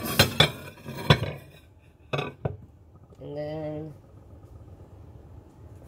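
Dishes and plastic containers knocking and clattering as they are handled and stacked: a cluster of sharp knocks in the first second or so, two more a little after two seconds. A short hummed voice sound follows about three seconds in.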